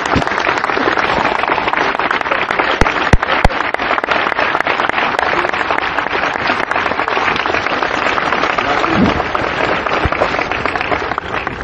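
Audience applauding, a dense steady clapping that stops as the speaker begins.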